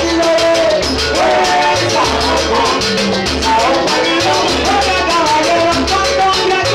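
Live salsa band playing: singers over a repeating bass line and a steady, quick percussion pulse with maracas.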